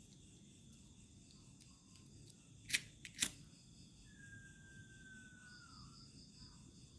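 Two sharp clicks about half a second apart, over a steady pulsing chirr of crickets. Later comes a faint thin whistle, held for about two seconds and sliding slightly down at the end.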